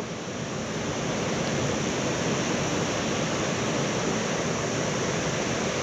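Steady rushing of ocean surf along a beach.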